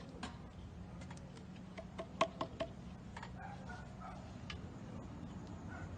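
Scattered light clicks and knocks over a steady low hum, with a quick run of about four sharper clicks around two seconds in.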